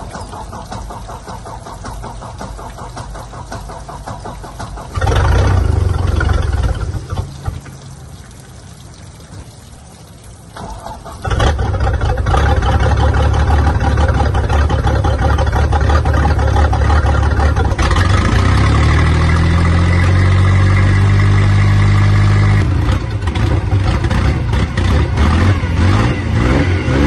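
A 1998 Stingray boat's MerCruiser sterndrive engine is cold-started after winter storage. It cranks for several seconds, fires about five seconds in and stumbles out, then catches about eleven seconds in and runs. It revs up and holds a higher speed for a few seconds, then drops back to idle with a few small blips.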